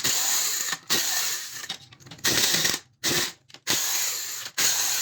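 A hand-held power tool running in about five short bursts, each under a second, with brief pauses between them, as it works on the motorcycle engine.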